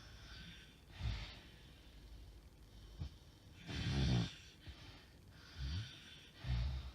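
A woman snoring in her sleep: four uneven snorts, the loudest about halfway through, with hissing breaths between them. The snoring is the kind presented as sleep apnea syndrome, with many pauses in breathing.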